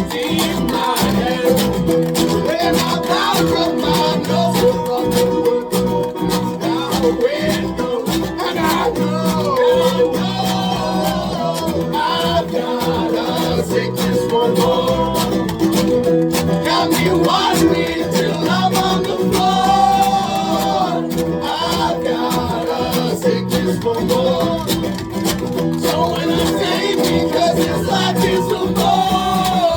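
Live folk band playing a song, with guitar to the fore and a melody line above it.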